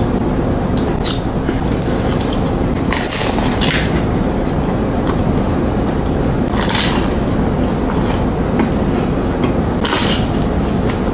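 Close-miked eating: a crunchy bite about three times, a few seconds apart, over a steady, loud, low noise.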